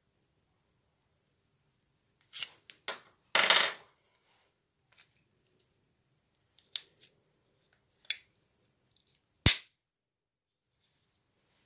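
Plastic casing of a Mini Cooper key fob being fitted and pressed back together: a few light clicks and a short scrape, then one sharp snap about nine and a half seconds in as the housing clicks shut.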